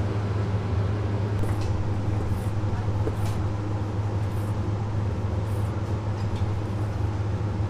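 A steady low hum, the loudest sound throughout, with a kitchen knife slicing braised pig's trotter meat and tapping faintly on a wooden cutting board about once a second.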